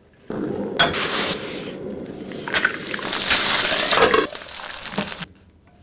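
An egg frying in hot oil in a covered pan, sizzling loudly, with a few sharp clicks. The sizzle starts suddenly just after the start and cuts off near the end.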